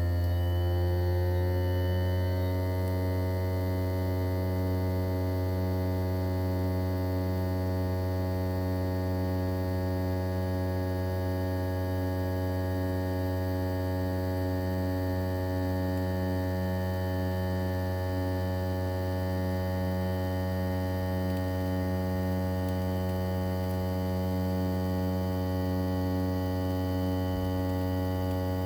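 Daikin ARN22HS outdoor unit's inverter-driven swing rotary compressor running with a steady hum and layered whine. Its tones shift slightly in the first couple of seconds, then hold steady.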